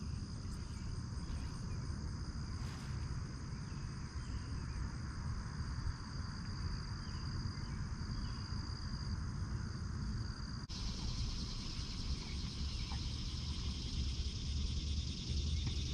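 Insect chorus: a steady high-pitched trilling drone over a low rumble, which changes abruptly about two-thirds of the way through into a broader, hissier buzz.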